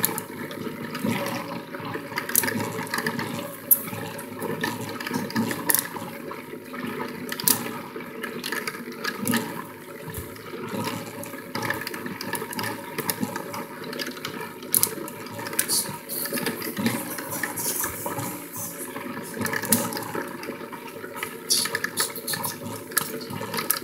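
Toy tornado machine running on its strong fan setting: a steady rushing whir with irregular short clicks and ticks throughout.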